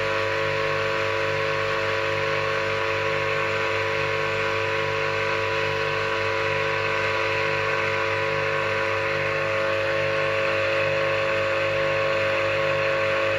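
Old Soviet three-phase induction motor (3000 rpm) running without load on 220 V single-phase through a capacitor, wired in delta: a steady electrical hum with a slow, regular beat in its low drone. The owner finds it noisier and hotter-running in delta than in star.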